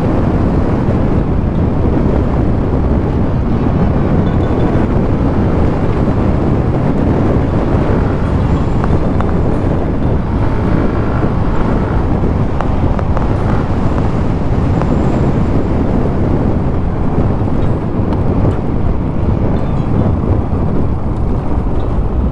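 Steady wind noise on the rider's microphone over the running of a Yamaha Aerox 155 scooter's single-cylinder engine, holding a steady pace.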